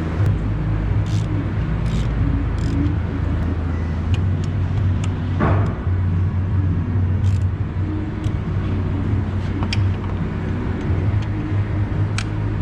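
Car engine running steadily, with scattered light clicks and ticks over it.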